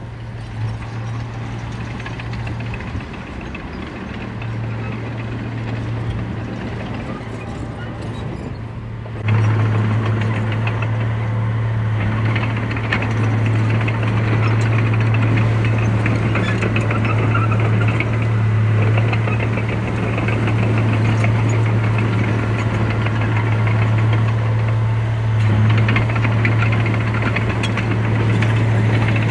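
Heavy diesel construction machinery running with a steady low drone, jumping suddenly louder about nine seconds in and staying at that level.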